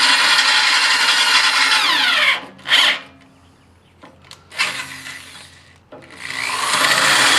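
Electric drill boring a 1/4-inch hole through steel, one step in opening the hole up to 3/4 inch. It runs steadily, winds down and stops about two seconds in, gives a brief blip, goes quiet apart from a few small knocks, then spins back up near the end.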